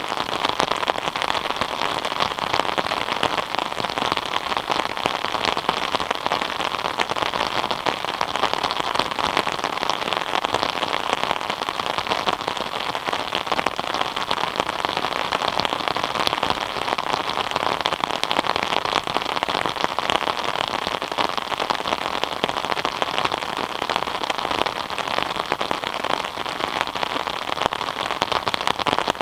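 Steady rain falling, a dense, even patter of drops that does not let up.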